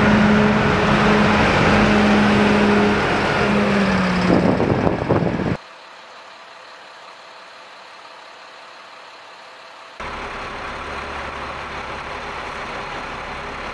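Oshkosh heavy military truck's diesel engine running with a loud steady drone that dips in pitch about four seconds in, then cuts off abruptly. After a quieter stretch, a lower steady engine rumble from the lined-up military trucks comes in about ten seconds in.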